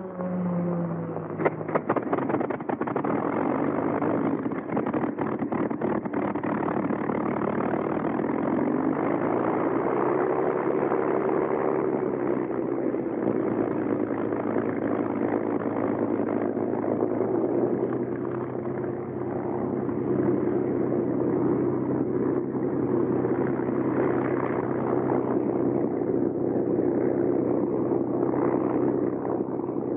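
Bell P-39 Airacobra's Allison V-12 engine starting: a sharp cough about a second and a half in, a few seconds of rapid spluttering firings as it catches, then a steady run whose tone rises briefly and settles.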